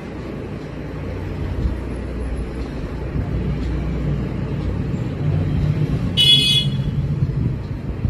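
Steady low rumble with a brief high-pitched tone, like a honk, a little over six seconds in.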